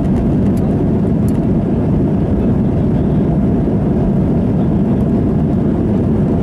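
Airbus A320-214's CFM56 turbofan engines at takeoff thrust during the takeoff roll, heard inside the cabin from a seat over the wing: a loud, steady roar.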